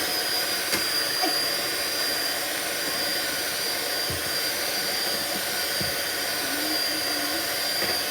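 Electric mixer running at a steady speed with a high motor whine, beating a bowl of cream and milk mixture.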